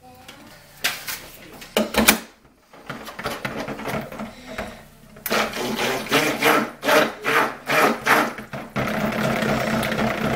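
Stick blender mixing cold-process soap batter in a plastic pot, running in short pulses and then steadily near the end. A couple of sharp knocks come about two seconds in.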